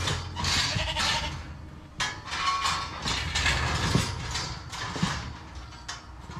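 Sheep and lambs bleating several times, with some of the calls overlapping.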